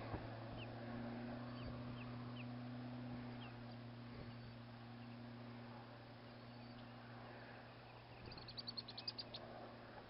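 Faint bird calls: a few short high chirps, then about a second of quick, sharp repeated notes near the end, over a steady low hum.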